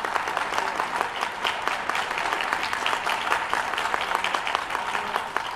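Audience applauding: many hands clapping in a dense, irregular patter at an even level.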